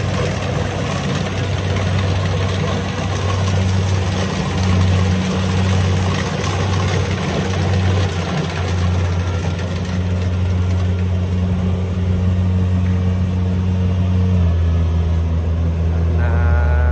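Kubota rice combine harvester's diesel engine running steadily under load as it cuts and threshes rice, a loud low drone; the engine note drops slightly near the end.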